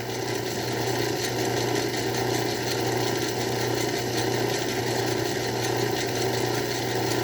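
Craftsman 109 bench lathe running steadily with a low hum as the half-inch drill bit is backed out of the bore.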